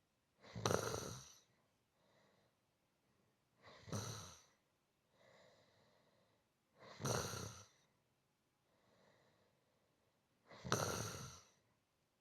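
A person snoring softly in slow, even breaths: four louder snoring breaths about three and a half seconds apart, each followed by a fainter breath.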